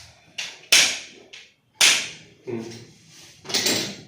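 A run of sharp, cracking impacts during a chiropractic adjustment, about six in an irregular sequence. The two loudest come about a second apart, and the last one, near the end, is a longer, smeared crack.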